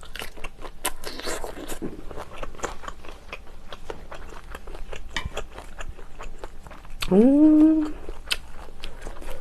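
Close-miked eating: shrimp being bitten and chewed, with many small crunchy clicks and wet mouth sounds. About seven seconds in, a short voiced hum rises in pitch and holds for under a second, the loudest sound here.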